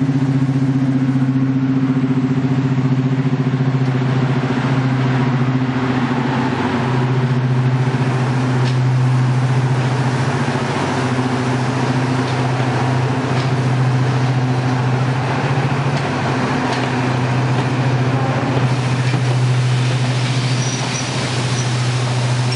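Class 55 Deltic diesel locomotive 55022 pulling away with its train, its twin Napier Deltic two-stroke engines running under power in a loud, steady low drone, with occasional clicks as the coaches roll past.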